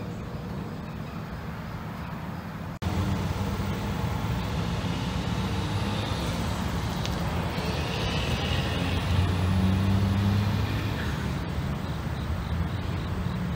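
Long freight train of empty autorack cars rolling past, a steady noise of wheels on rail. About three seconds in the sound drops out for an instant and comes back louder, with a steady low hum that is strongest a little after the middle.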